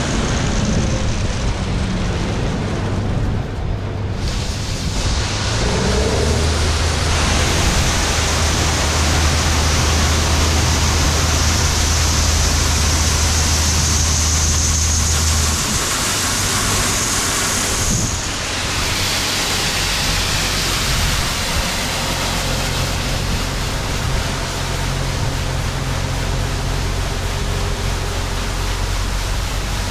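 Case IH 2388 Axial-Flow combine running while harvesting soybeans: a steady low engine drone under a loud, even rushing noise, the engine note shifting a couple of times.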